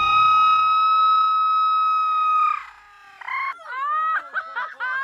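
A high, steady held note lasting about two and a half seconds, then a run of quick, high-pitched shrieks of a child's laughter.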